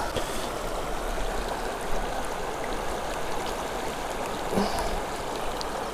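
Creek water running steadily, an even rushing noise.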